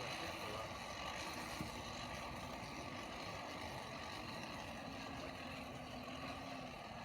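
Steady mechanical drone of a running motor or engine, holding an even pitch with no hammer strikes.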